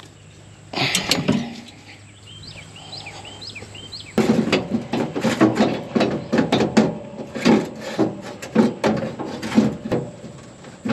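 Irregular knocks and clunks of hands working on combine parts, roughly one or two a second from about four seconds in, after a short clatter about a second in. A few quick high chirps come around two to three seconds in.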